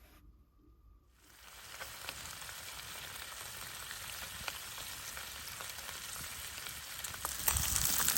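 Bacon frying, a steady sizzle with small scattered pops; it starts about a second in and gets louder near the end.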